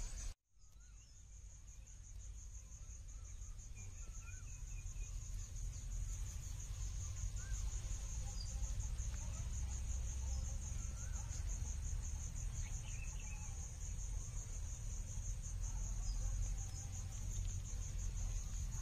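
Crickets chirring steadily in a high, fast-pulsing trill, fading in over the first few seconds, over a low rumble, with a few faint chirps scattered through.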